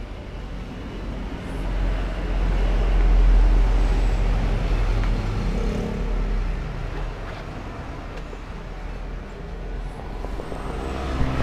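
Street traffic: a motor vehicle passing close by, its low engine rumble building over the first few seconds and fading away about seven seconds in. Near the end there is rustling and a knock from the camera being handled.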